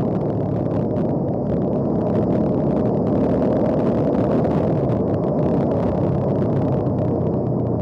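Bajaj Dominar 400 motorcycle's single-cylinder engine and exhaust running steadily under way.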